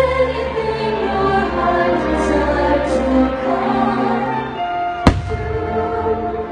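Fireworks show soundtrack of orchestral music with a choir singing, and one firework shell bursting with a sharp bang about five seconds in.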